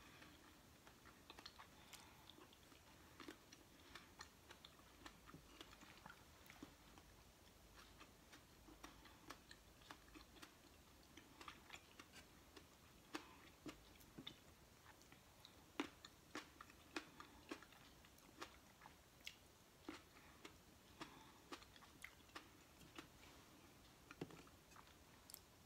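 Faint, close-miked chewing while eating grapes and cheese: a string of short clicks from the mouth at an irregular pace, about one or two a second.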